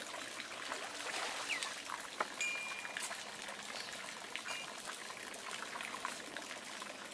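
Steady trickling, splashing water with scattered small clicks. A few short high-pitched chirps sound a couple of seconds in.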